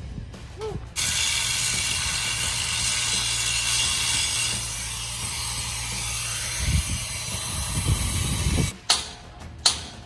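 Steel sliding gate rolling along its ground track under a hand push: a steady metallic rolling grind that starts suddenly about a second in and cuts off near the end, with heavier low rumbling just before it stops.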